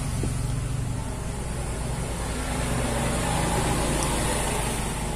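A steady low mechanical hum with a light hiss over it.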